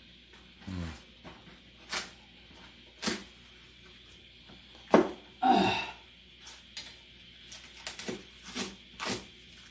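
Kitchen knife chopping freshly picked green onions on a plastic cutting board, with a crunchy sound to each cut. A few scattered strokes and a louder knock with a brief clatter about five seconds in give way to steady chopping at about two strokes a second in the second half.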